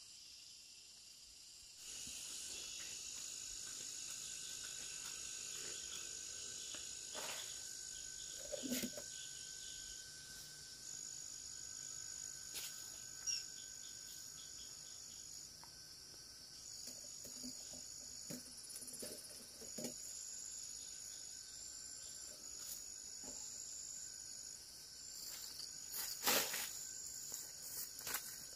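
Insects chirring steadily in a high pitch, with the chirring breaking into short pulses in the second half. A few soft knocks and rustles are heard, the loudest near the end.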